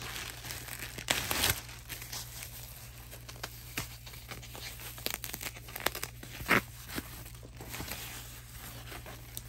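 Clear plastic bag and foam wrap crinkling and rustling as hands unwrap a new handbag. The crackling is densest in the first second and a half, then comes in scattered ticks, with one sharp crackle about six and a half seconds in.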